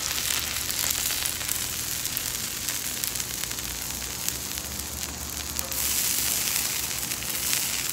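Cheesesteak filling and onions sizzling on a hot flat-top griddle: a steady hiss.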